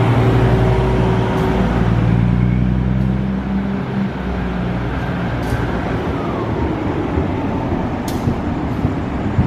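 A train running at a station: a steady low engine hum for the first few seconds gives way to a rougher, noisier rumble.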